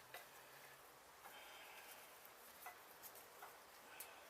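Near silence, with a few faint, sharp metallic clicks as a steel billet camshaft is eased into the cam bearings of a 1310cc Classic Mini engine block.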